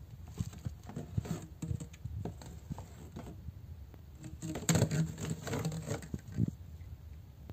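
Corrugated plastic hose being handled and pulled out of a cardboard box: irregular rustling, scraping and light knocks of plastic against cardboard, busiest about two thirds of the way through.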